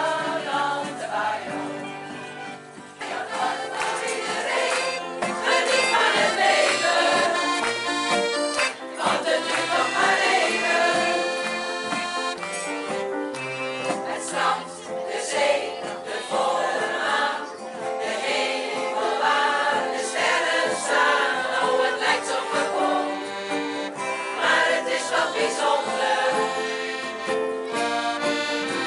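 Choir singing a song together, accompanied by accordion.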